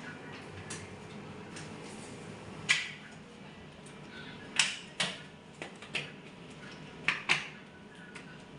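Sharp plastic clicks and knocks from hands fitting a dialyzer onto a hemodialysis machine, about half a dozen at irregular intervals, two of them close together near the end, over a steady low hum.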